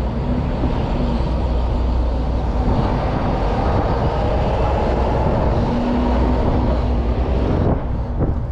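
Steady low rumble of an idling diesel truck engine heard in the open, which drops off suddenly near the end as a door shuts it out.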